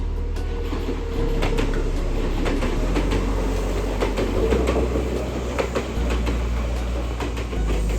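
Kintetsu electric commuter train running past, with a steady low hum and the wheels clattering and clicking over the rails.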